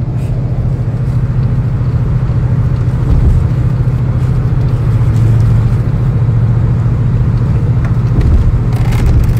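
A car on the move heard from inside the cabin: a steady low drone of engine and road noise, with an even hiss of tyre and wind noise above it.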